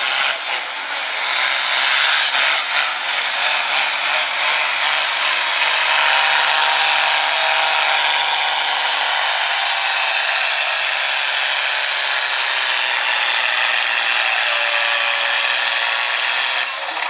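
Ford farm tractor's diesel engine running flat out under heavy load as it drags a weight-transfer pulling sled, a loud steady drone that eases off just before the end.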